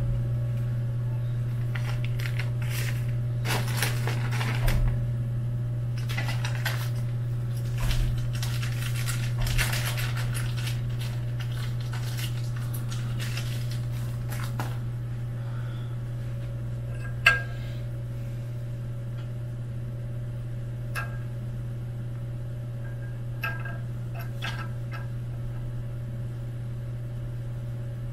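Small metal hardware, M3 screws and T-nuts, clinking and rattling as it is handled, with rustling; busy for the first half, then only a few separate clicks. A steady low hum runs underneath.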